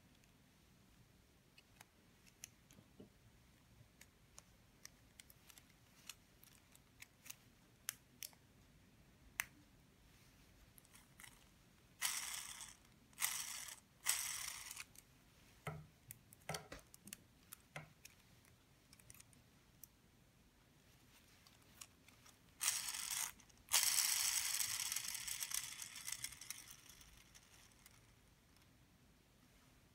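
Plastic Lego Technic gears and beams clicking as they are handled and fitted, then the gear train spun by hand in a few short whirring bursts. Near the end comes a longer whir that fades over a few seconds as the gears spin down freely.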